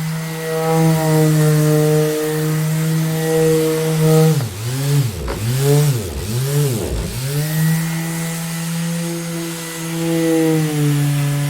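Electric orbital sander running with a steady motor hum. A little after four seconds in, its pitch dips and recovers several times in quick succession before settling back to an even pitch.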